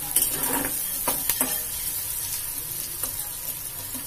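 Chopped onion, garlic and green chilli sizzling in oil in a steel kadai as they are lightly browned. A steel spatula scrapes and clinks against the pan several times in the first second and a half of stirring.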